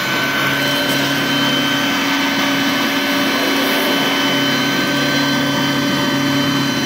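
2010 Sanitaire Multi-Purpose Pro commercial upright vacuum cleaner running steadily: a constant motor whine with several fixed high tones over a rushing airflow hiss. A low hum drops away for a couple of seconds around the middle, then returns.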